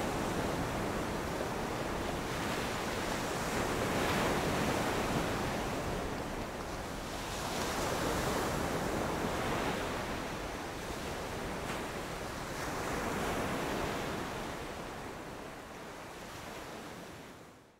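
Ocean surf breaking on a sandy beach: a steady wash that swells about every four to five seconds, with wind rumbling on the microphone. It fades out at the very end.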